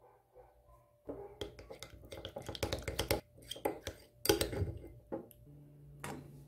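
Metal spoon clinking and scraping against a small glass bowl while stirring a thick sauce: a rapid, irregular run of sharp clicks lasting about four seconds. After it, a faint steady hum and one more knock.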